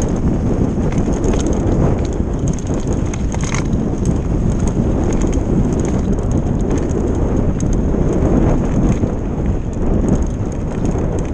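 Enduro mountain bike rolling fast down a snowy trail: a steady rumble of tyres on snow and wind on the microphone, with the bike's frame and drivetrain rattling in many small irregular clicks.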